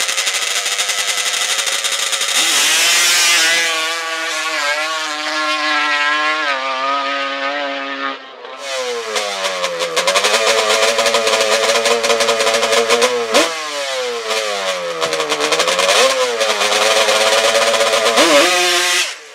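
Drag-racing ATV engine revved hard and repeatedly at the start line, its pitch climbing and falling with each throttle blip. It drops off briefly about 8 seconds in, then revs again.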